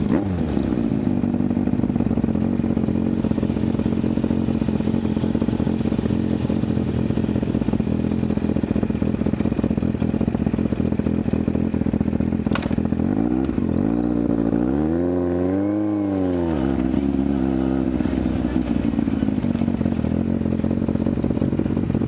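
Sportbike engine idling steadily just after being started, then revved up and let back down once, about fourteen to seventeen seconds in, before settling back to idle.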